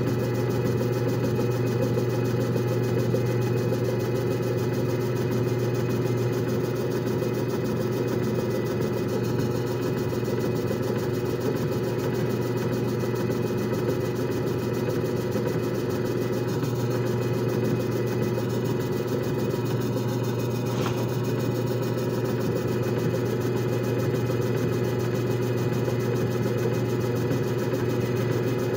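JFJ Easy Pro disc repair machine running a timed cycle: a steady, unchanging motor hum and whir.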